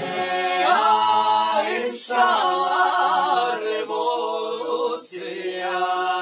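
Voices singing a cappella, choir-like, in three long held phrases.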